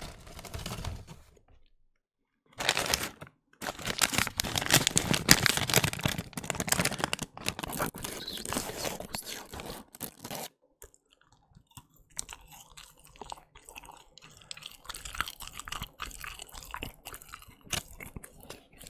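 Close-miked paper fries carton rustling and crinkling for several seconds as French fries are picked out, then, after a short pause, quieter chewing of the fries with soft clicky mouth sounds.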